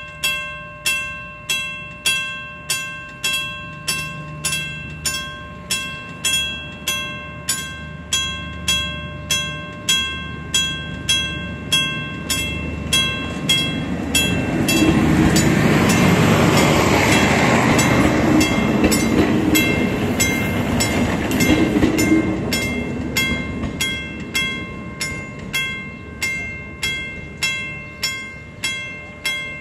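Level-crossing warning bell ringing about twice a second throughout. A TrainOSE MAN diesel railcar passes over the crossing from about halfway through. Its engine and wheels build to the loudest part for several seconds and then fade while the bell keeps ringing.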